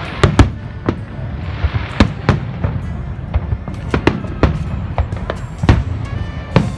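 Aerial fireworks display bursting: a dozen or more sharp bangs at irregular intervals over a continuous low rumble.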